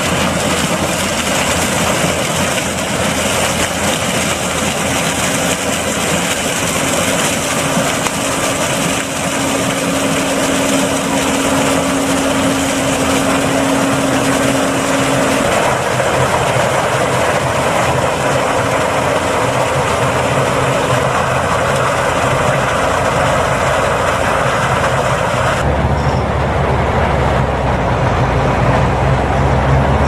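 New Holland CR8.80 combine harvester working through standing corn: a steady, loud mix of engine and threshing machinery, with stalks being torn and chopped by the Geringhoff 8-row corn head. About four seconds from the end a deeper engine sound takes over, from the Fendt Vario 820 tractor driving up.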